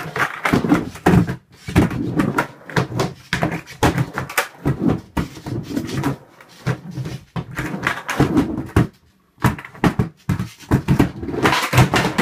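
Skateboard wheels rolling on a concrete floor, with many irregular clacks and knocks of the board hitting the floor and a plastic box as it is ridden onto and off it.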